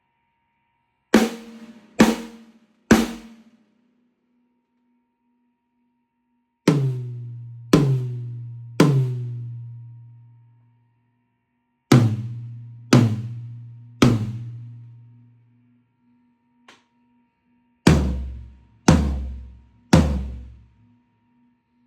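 Drum kit being tone-checked: one drum at a time is struck three times, in four groups. The first group is short and higher-pitched, the next two are lower toms that ring out long, and the last is the deep bass drum. A faint tick comes between the last two groups.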